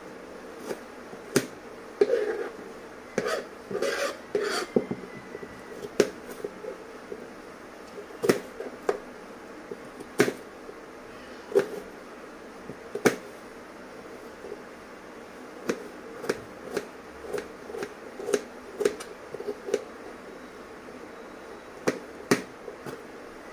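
Kitchen knife chopping onion and then carrot on a plastic cutting board: irregular sharp knocks of the blade on the board, sometimes in quick clusters, with pauses between.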